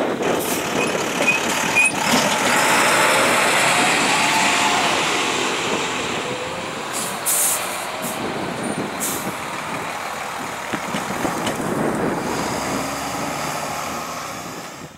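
Heavy road vehicles, a dump truck and then a large motorhome, driving over a railroad grade crossing with their engines running. Short air hisses, typical of air brakes, come about seven and nine seconds in, and the traffic sound fades near the end.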